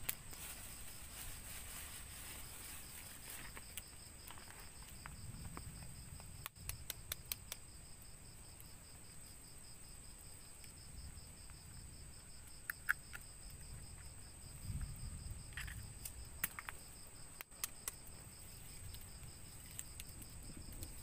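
Night insects chirring without pause, a steady high whine over a fast pulsing trill. A few sharp clicks and taps come in short clusters as eggs are cracked with a knife into a split bamboo tube.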